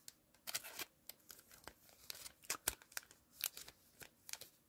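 Baseball cards being handled and slid apart: faint, irregular rustles and light ticks, with a few sharper clicks.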